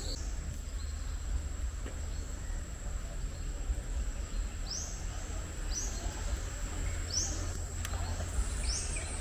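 Steady high-pitched insect drone, as of crickets or cicadas in tropical forest, with a short rising chirp repeating about once a second from about halfway through. A low rumble runs underneath.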